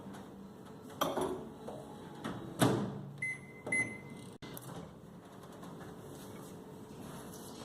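Microwave oven being started: a knock, then the door shutting with a louder knock, then two short high keypad beeps about half a second apart. A faint steady hum follows.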